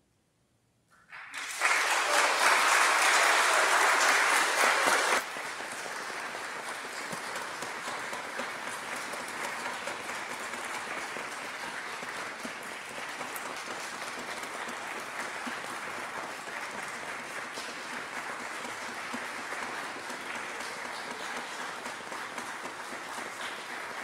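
Congregation applauding. The clapping starts about a second in and is loud for about four seconds, then drops suddenly to a lower, steady level and carries on.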